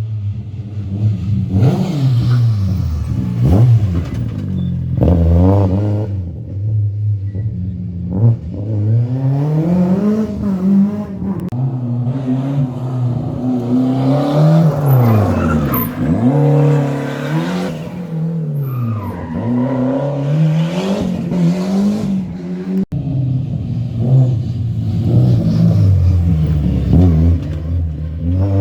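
Historic rally cars at full attack, engines revving hard through the gears. The pitch climbs with each pull and drops at gear changes and lift-off, again and again, with one car sweeping past close by about halfway through.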